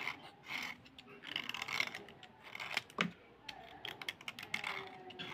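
A knife blade scraping along a slate pencil, shaving it down in a series of short, quick scraping strokes with sharp clicks.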